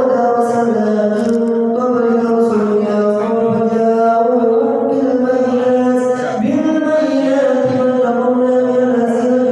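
A man's voice in melodic Quranic recitation (tilawah), holding long ornamented notes with a brief swell in pitch about six and a half seconds in.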